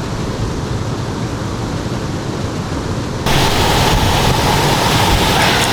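Steady rush of flowing water with wind rumbling on the microphone, turning suddenly louder and brighter about three seconds in.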